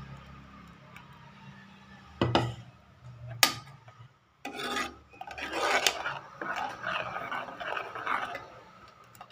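A steel spoon scraping and rubbing against the inside of an aluminium pot while stirring ground coconut paste into tamarind gravy. Two sharp knocks come about two and three and a half seconds in, and steady scraping follows from about halfway through.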